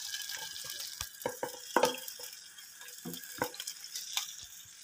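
Yogurt-marinated meat tipped into hot oil in a frying pan, sizzling steadily, with scattered soft knocks as the bowl and pieces hit the pan.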